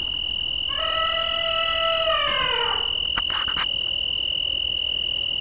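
An elephant trumpeting once: a long call of about two seconds that drops in pitch at the end, over a steady high drone of insects. A few sharp clicks follow about three seconds in.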